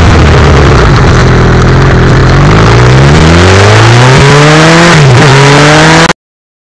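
Honda CB1000R inline-four engine under way, mixed with heavy wind and road noise. The revs fall, then climb again with a short dip about five seconds in, like a gear change. The sound cuts off suddenly near the end.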